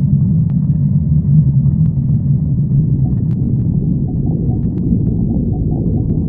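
Stomach growling: a long, low rumble that goes on without a break, with a few faint clicks.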